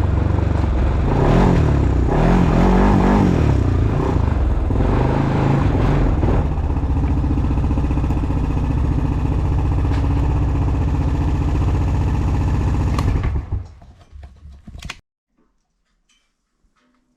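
ATV engine running with a few revs, then settling to a steadier, lower run. About thirteen seconds in it is shut off, sputtering down to silence within two seconds.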